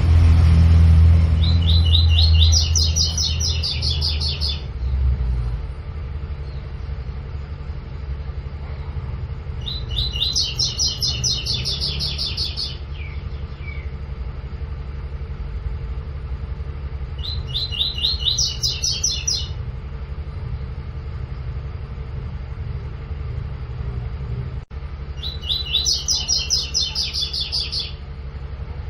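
Double-collared seedeater (coleiro) singing its 'tui-tui' song in four bursts of rapid, repeated high notes, each about two seconds long and several seconds apart. A steady low rumble runs underneath and is loudest in the first few seconds.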